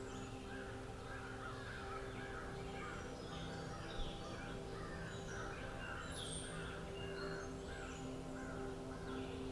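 Birds calling in the forest: one bird gives a long series of repeated harsh calls, about two a second, while other birds chirp higher up. Under them runs a steady low hum, and there is a single short knock about four seconds in.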